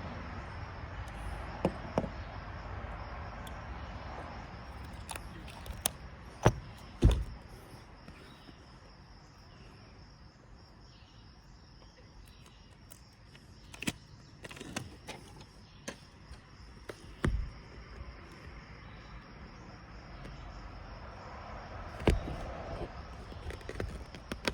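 Scattered sharp knocks and handling clicks from hands working repair tape onto an RV awning, over a steady background with a faint high-pitched hum throughout.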